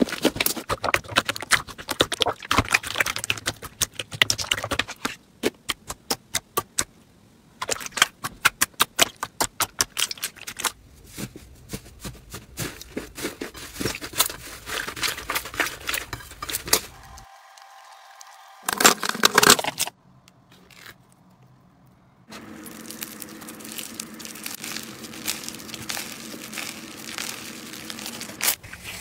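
Slime squished, stretched and poked by hand, making sticky crackling and popping sounds, with a run of sharp separate clicks in the first third and a short lull past the middle.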